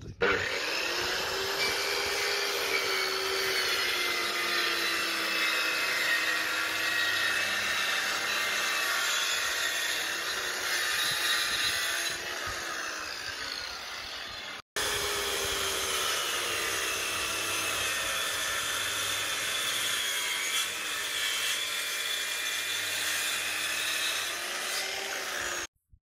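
Stanley circular saw running under load as it rips film-faced plywood along a clamped straightedge, its motor pitch sagging slightly and recovering during the cut. The sound breaks off for an instant about halfway through, resumes at once, and stops suddenly near the end.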